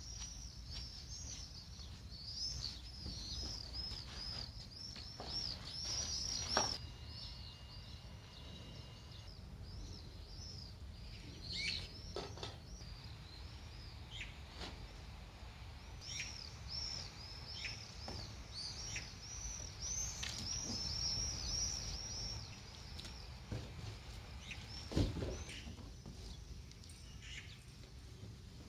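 Many small birds chirping in quick high calls, in dense spells, over a low steady background rumble. A few short knocks and rustles come from the foil-lined cardboard solar cooker panel being handled.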